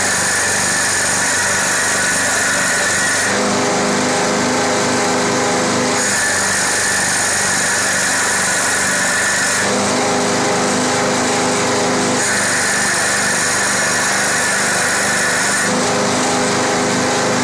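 CNC wood lathe running, a loud steady machine whine whose tones switch between a higher and a lower set every three seconds or so in a repeating cycle.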